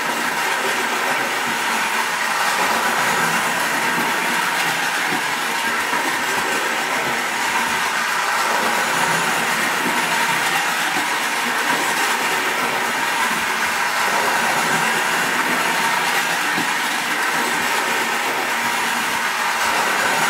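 Battery-powered Distler H0 toy train running on its metal track, its small electric motor and wheels making a steady running noise.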